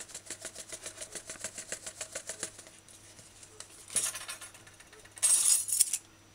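Dried parsley being shaken out of a plastic shaker jar into a palm: a short dry rattling hiss about four seconds in, then a longer, louder one just after five seconds. Before that, a run of quick light ticks as the dried herbs and measuring spoons are handled.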